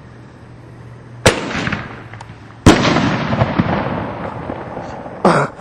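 Two loud firework reports about a second and a half apart, each trailing off in rumbling echo and crackle, the second the loudest and longest. A shorter, softer burst follows near the end.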